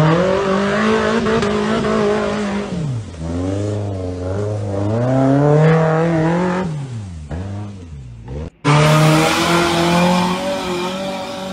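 Small off-road 4x4's engine revving up and down several times under load as it climbs. About eight and a half seconds in, the sound cuts to another truck's engine running at high, fairly steady revs with tyre and mud noise.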